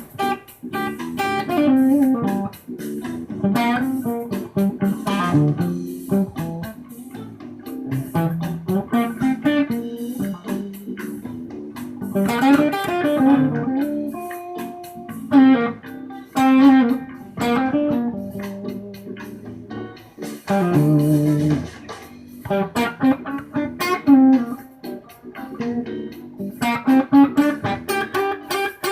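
Telecaster-style electric guitar played through an MXR Fuzz Classic Mini fuzz pedal and a Durand MG100R II amplifier, picking a run of single notes and chords in short phrases with brief gaps between them.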